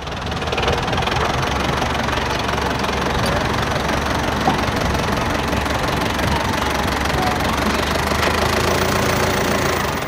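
A car engine idling steadily.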